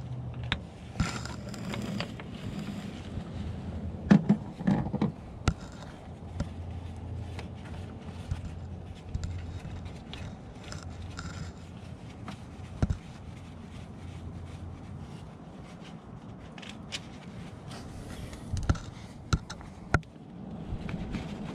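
Cables being worked off a lead-acid battery terminal by a gloved hand: scraping and rubbing with scattered clicks and a few louder knocks, over a low steady hum.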